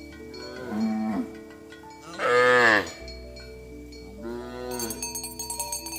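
Cows mooing: three calls, each rising then falling in pitch, the second, about two seconds in, the loudest.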